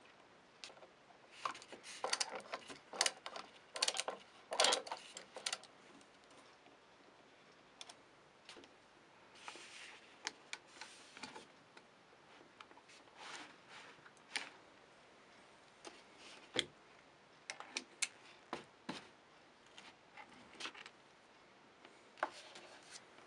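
Clicks and scrapes of a screwdriver and small steel parts being worked at the back of an AK-47 receiver while the wooden buttstock's screws are taken out. A dense run of clicks comes in the first few seconds, then single clicks and short scrapes spaced out.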